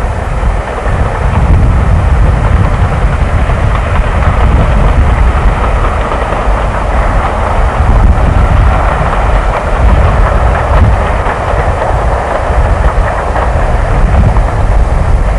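Diesel-hauled passenger train running past at a distance, a steady engine and rail noise, with wind buffeting the microphone.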